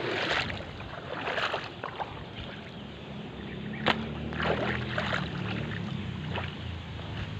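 Footsteps splashing and sloshing through shallow, muddy swamp water, a few separate splashes with a sharp click about four seconds in. A low steady hum runs underneath from about three seconds in.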